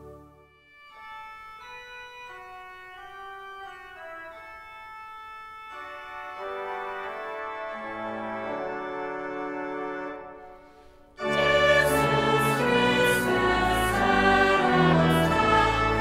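Organ introduction: a single melody line of held notes, joined by more parts about six seconds in. About eleven seconds in, much louder, fuller organ music comes in, with the choir entering.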